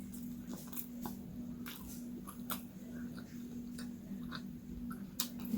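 A person chewing food close to the microphone: scattered soft wet clicks and smacks, over a faint steady hum.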